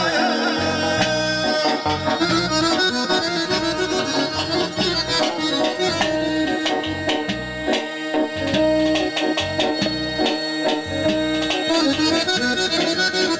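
Accordion playing an instrumental passage of Azerbaijani traditional music over a steady beat of drum and bass.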